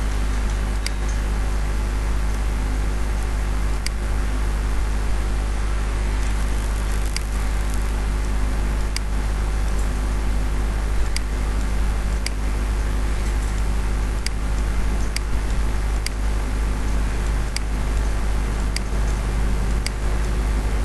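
A steady low electrical hum with hiss, with sharp single computer-mouse clicks about once a second, irregularly spaced, as path points are placed.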